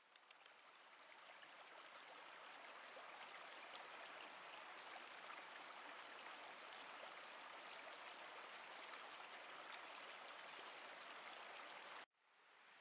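Faint, steady rushing of a stream, with a light patter in it. The sound drops out suddenly near the end and slowly comes back.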